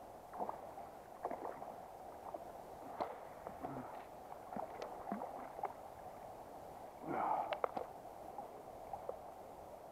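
Water splashing and sloshing as a brown trout is drawn into a landing net, over a steady background of river water. The loudest splashes come about seven seconds in.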